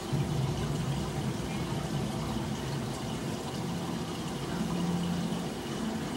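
Aquarium filter and pump running: steady rushing water noise with a low wavering hum underneath.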